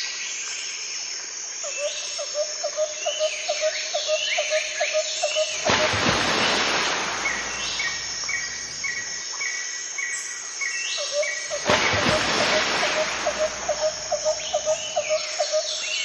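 Birds chirping and calling, with repeated high chirps, falling whistles and a quick run of lower chirps, while a rushing noise swells and fades twice.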